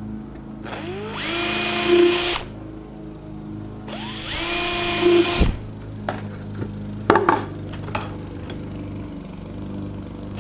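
Cordless drill boring screw holes through the plastic wall of a 5-gallon bucket for a hinge. It runs twice, each run rising in pitch as the motor spins up, then holding for about a second. The runs are followed by a few sharp clicks and knocks of handling.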